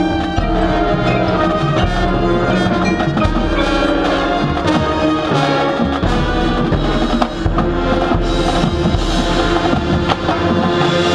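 Marching band playing: sustained chords over frequent drum strokes and bass drum hits. A hiss-like wash of sound builds near the end.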